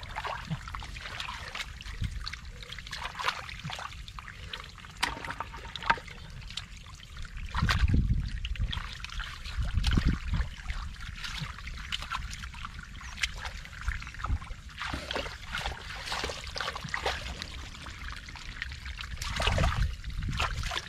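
Hands splashing and scooping through shallow muddy water, with trickling and sloshing and a few dull low thumps, the loudest about eight and ten seconds in.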